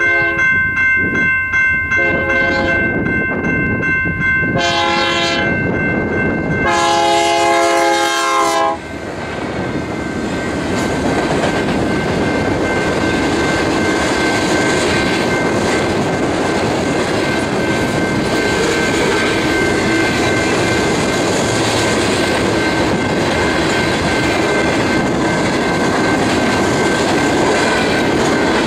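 Freight locomotive air horn sounding three blasts, the last and longest ending about nine seconds in. A long manifest freight train then rolls past close by: steady clatter and rumble of the cars' wheels on the rails, with a thin steady high tone running through it.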